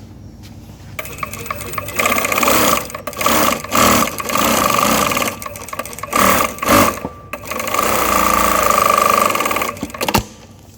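Brother single-needle industrial lockstitch sewing machine running in several short bursts, then one steady run of about two seconds, with a motor whine over the needle's rattle. It is sewing with a stitch length just set short.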